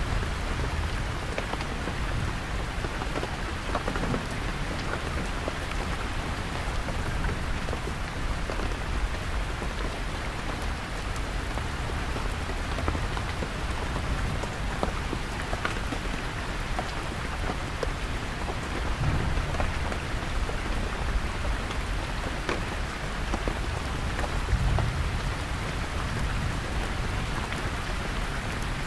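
Heavy rain falling steadily on a canvas tent, with deep distant thunder rumbling low underneath and swelling twice in the second half.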